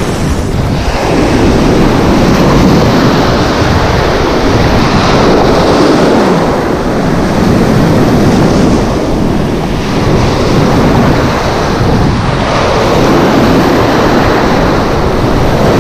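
Sea surf breaking and washing in around the wading angler close to the microphone, swelling and easing every few seconds, with a wave breaking close by near the end.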